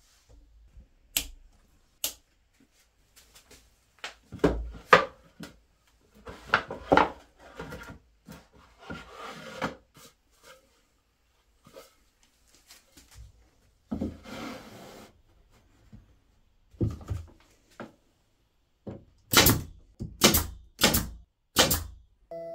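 Irregular knocks, taps and brief scraping, as of objects being handled and set down on a workbench, ending with four sharp knocks about a second apart.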